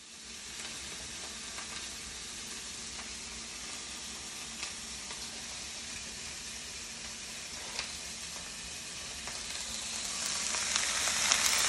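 Food frying in a pan: a steady sizzle with scattered small pops, growing louder near the end.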